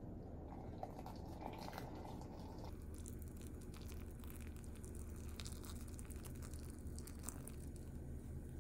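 Hot water poured from a gooseneck kettle into a glass measuring cup of dried shiitake mushrooms: a faint soft pour with scattered small crackles and ticks, over a low steady hum.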